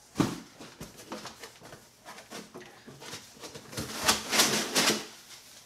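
Cardboard shipping box and its foam packing being rustled and scraped as hands dig inside for a packed part. There is a single knock just after the start, and the loudest burst of scraping comes about four seconds in.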